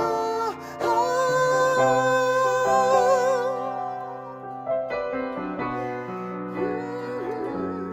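A woman singing a long held note with vibrato, accompanied by piano and harp. About halfway through, the voice stops and the piano and harp play on alone.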